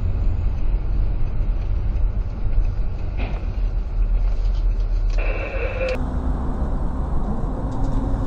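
Steady low rumble of a car driving, engine and road noise heard from inside the cabin by a dashcam. A steady high tone sounds for under a second about five seconds in.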